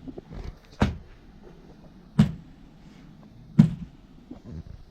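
Axe strikes being chopped by hand, three heavy blows evenly spaced about a second and a half apart.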